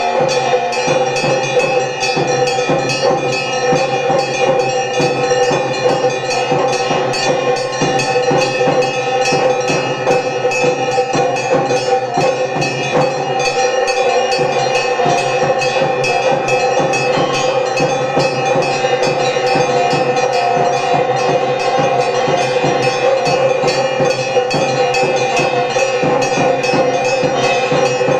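Temple bells rung rapidly and without pause for the lamp worship, a steady mass of ringing tones under fast, continuous strikes.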